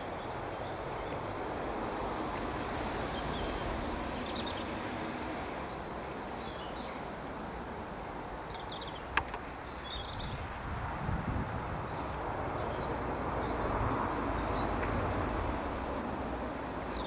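Class 66 diesel locomotive approaching from a distance, its two-stroke V12 engine a low rumble that grows louder in the second half. Birds chirp throughout, and there is one sharp click about nine seconds in.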